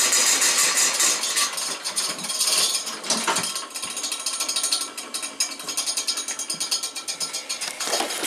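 Diesel engine of a John Deere 140 garden tractor running shortly after a cold start, with a rapid, even metallic clatter.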